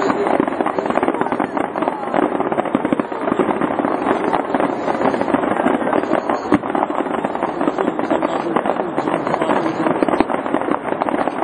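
New Year's fireworks display going off as a dense, unbroken crackle of many overlapping bursts and pops.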